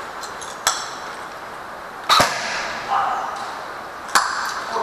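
Airsoft gun shots: three sharp single cracks roughly a second and a half apart, the middle one loudest with a short echo, over a steady hiss.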